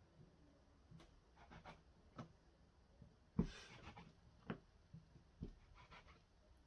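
Soft, irregular taps and scrapes of a round cutter pressed through rolled pastry dough onto the work surface, about five knocks, the loudest a little over three seconds in with a brief scrape after it.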